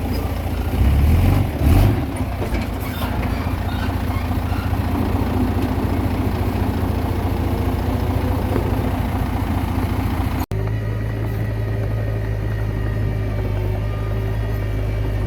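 Diesel engine of a Komatsu D20P bulldozer running steadily at work, with a few knocks in the first seconds. About ten seconds in, the sound briefly cuts out, then the engine resumes steadily.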